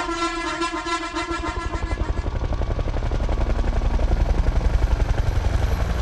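Helicopter rotor chopping at a rapid, even beat with a deep low end, taking over about two seconds in and getting louder after that. Before it, a pulsing musical tone with many overtones fades out.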